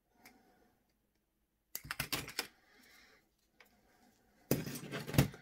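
Small clicks and rattles of pliers and a soldering iron being handled while solder wire is wrapped around the iron's tip. There is a cluster of clicks about two seconds in and a louder clatter near the end.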